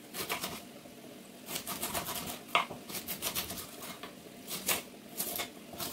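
Kitchen knife chopping a red onion into small dice on a wooden cutting board: quick runs of sharp taps of the blade on the board, with short pauses between runs.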